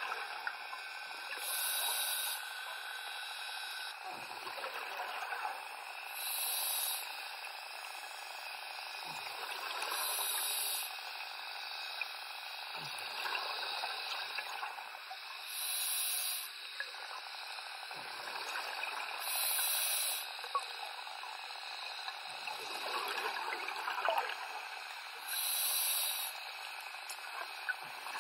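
A scuba diver breathing through a regulator underwater: a sharp hiss from the regulator roughly every four to six seconds, with bubbling from the exhalation between them.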